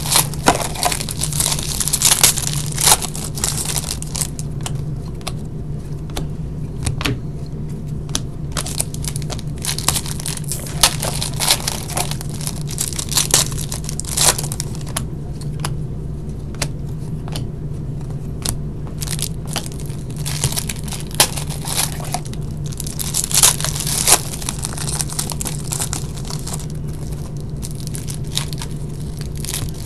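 Plastic and foil wrappers of hockey card packs and boxes being torn open and crinkled by hand, with sharp crackles scattered throughout over a steady low hum.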